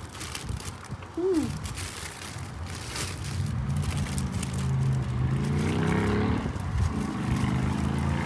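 A passing car's engine hums low and climbs slowly in pitch as it accelerates, dips briefly, then carries on. A short rising-and-falling call sounds about a second in.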